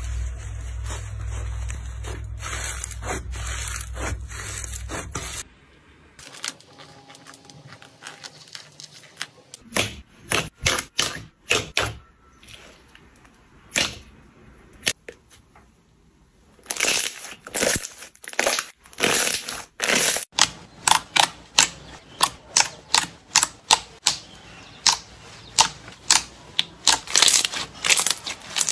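Slime being squeezed and poked by hand. First there is dense, steady crackling, then scattered sharp clicks and pops as air pockets in the slime burst. In the last third these come in a quick run of about two or three a second.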